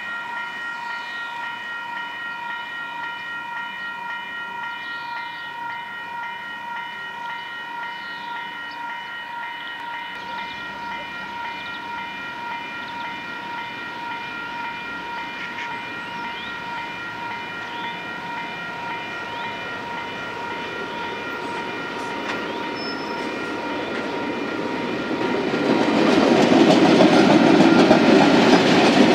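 Level crossing warning bell ringing steadily while a freight train approaches, growing louder from about ten seconds in. About 25 seconds in, the diesel locomotive hauling the flatbed wagons reaches the crossing, and loud engine and wheel noise takes over and drowns the bell.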